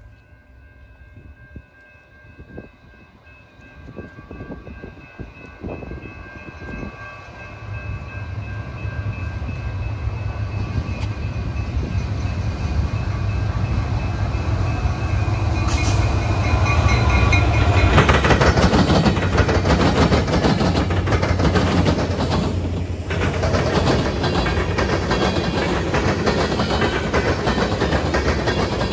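Canadian National diesel freight train approaching and passing. The lead locomotive's multi-note horn sounds through the first half while the diesel engines' rumble grows louder. After the locomotives pass, steel wheels rumble and click over the rail joints as the freight cars roll by close.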